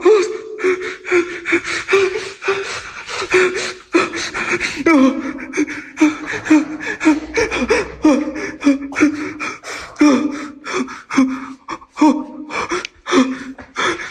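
A person's rapid, frightened panting gasps and short cries of "ah, ah, ah", repeated a few times a second with breathy inhales between.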